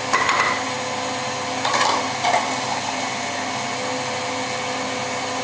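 KitchenAid Artisan stand mixer running steadily with a motor whine, its whisk beating sponge-cake batter in a steel bowl. There are a few brief knocks in the first two and a half seconds.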